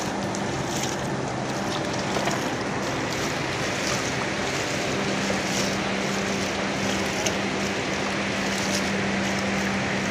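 An engine running steadily at an even pitch, with a steady hiss over it.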